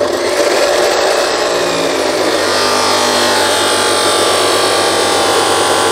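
DeWalt abrasive chop saw running and cutting through a 4-inch white plastic water pipe, a loud, steady grinding whine that starts abruptly and holds level.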